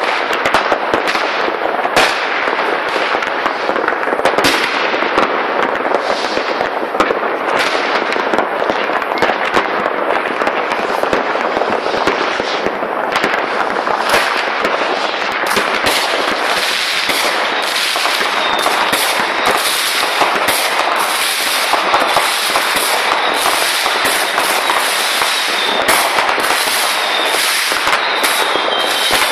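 Many New Year's Eve fireworks and firecrackers going off at once: a dense, unbroken crackling with many sharp bangs, and a thin high whistle near the end.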